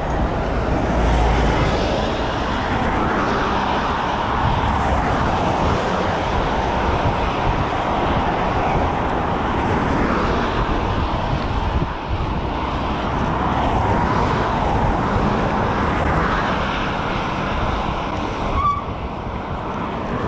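Wind blowing hard across the microphone, a steady rushing and low rumble, with the noise of busy road traffic underneath.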